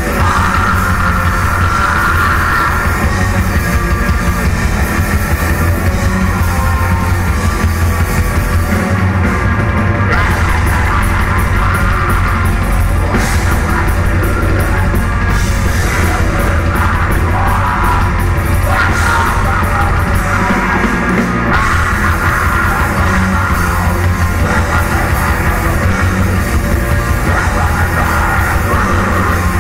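A Norwegian black metal band playing live at full volume: electric guitars with harsh, shouted vocals over them, loud and unbroken.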